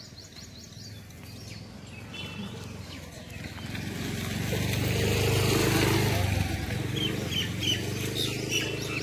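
A motor vehicle passes along the road. Its engine hum builds to a peak about five to six seconds in, then fades. Birds chirp briefly near the end.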